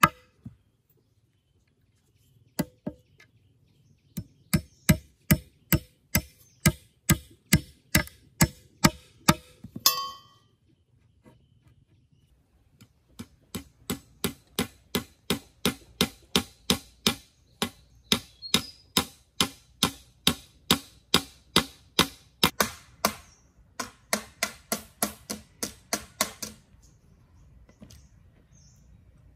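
A claw hammer strikes a chisel into a bamboo pole in steady blows, about two or three a second. There are two long runs of blows with a pause of a few seconds between them, and the blows stop a few seconds before the end.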